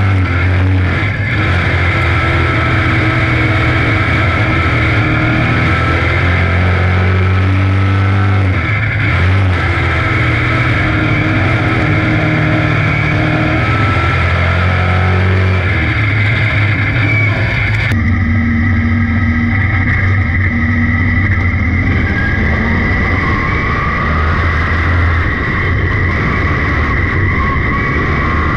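Sportsman dirt modified's GM 602 crate V8 running hard at race speed, heard from inside the cockpit, its note rising and falling with the throttle around the oval. About 18 seconds in, the sound switches to a duller recording of the same engine.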